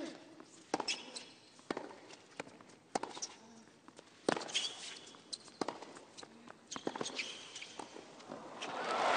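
Tennis rally on a hard court: a ball struck by rackets about every 1.3 seconds, with ball bounces, footfalls and short shoe squeaks between the hits. Crowd applause begins to swell near the end.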